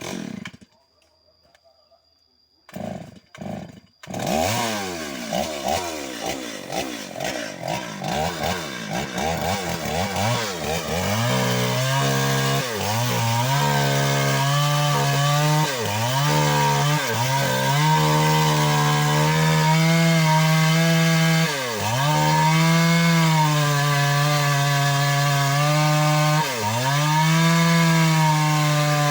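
Stihl 381 two-stroke chainsaw pull-started, catching about four seconds in and revved up and down a few times. It is then held at full throttle cutting wood, its pitch dipping briefly several times as the chain bogs down in the cut.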